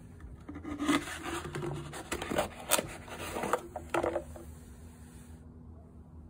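A knife blade piercing and scraping through a thin aluminium drink can on a wooden tabletop: a run of scratchy scrapes and crackles that stops about four seconds in.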